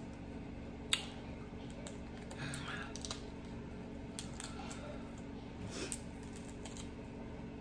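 Cooked shrimp being peeled by hand: scattered small clicks and crackles of shell and long fingernails, with one sharper click about a second in, over a faint steady hum.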